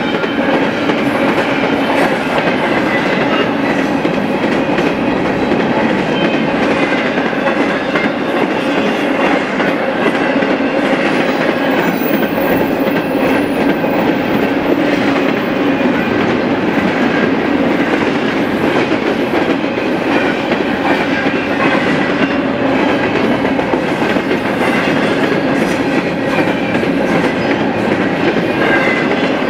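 BNSF double-stack intermodal train's container well cars rolling past, loud and steady.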